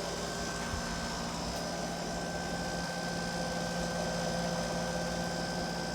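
Steady background machine hum: a constant low drone with a thin, high steady tone above it.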